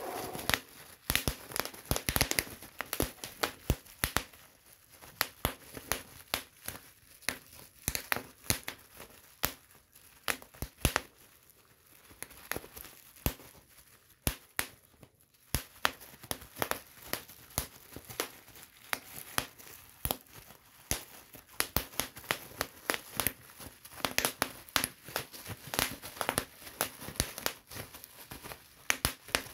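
Bubble wrap being popped: dozens of sharp pops at an uneven pace, some in quick runs, over the crinkling of the plastic sheet. The pops thin out for a few seconds about halfway through.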